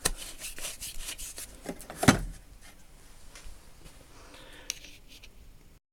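Small tools and wrapping being handled in a toolbox drawer: light clicks and rustling, with one sharp knock about two seconds in as something is set down.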